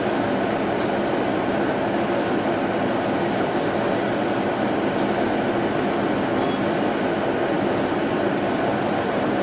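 Steady, unchanging mechanical hum with hiss, without any change in level.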